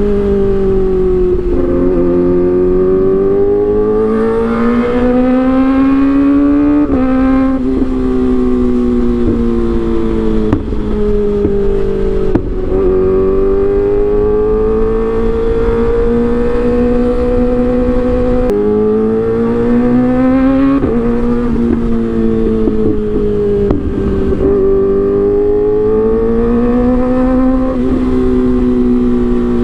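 Kawasaki ZX-25R 250 cc inline-four running through an Arrow aftermarket exhaust, its high engine note repeatedly climbing and falling, with several sudden drops in pitch.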